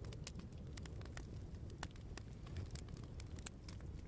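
Wood fire crackling in a fireplace: irregular sharp pops and snaps over a low, steady rumble of flames.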